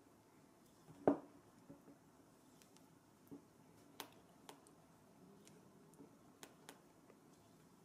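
Silicone spatula stirring thick chocolate ganache in a glass bowl: faint scattered clicks and taps as the spatula knocks against the glass, the sharpest about a second in.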